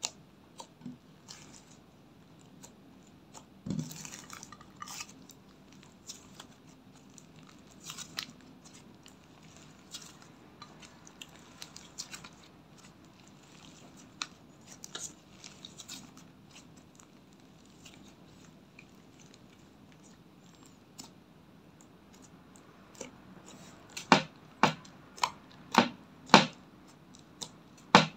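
Hands kneading and stretching glossy slime in a glass dish: soft sticky clicks and crackles. Near the end comes a quick run of loud, sharp pops as fingers poke into the slime.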